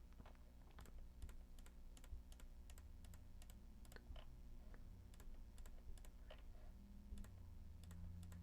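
Quiet, irregular typing on a computer keyboard, a few keystrokes a second.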